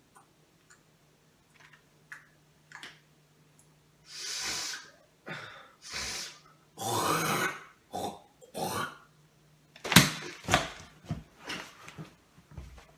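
A person making small, irritating mouth and nose noises: a few faint clicks, then a series of short, noisy snorts or breaths, then a quicker run of clicks and puffs near the end.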